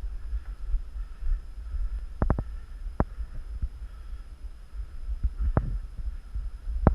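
Scattered airsoft gun shots: a quick burst of three about two seconds in, then single sharp pops, over a steady low rumble.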